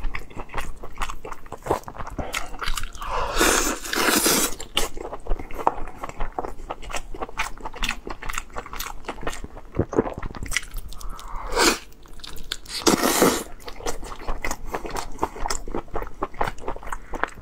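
Close-miked eating of boiled bone-in lamb ribs: wet biting and chewing with rapid mouth clicks and smacks throughout, and a few longer, louder bites.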